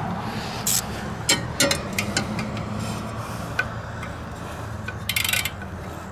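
Hand ratchet working the valve-cover bolts on a small Honda GCV190 engine: scattered single metallic clicks and clinks, then a quick run of ratchet clicks about five seconds in.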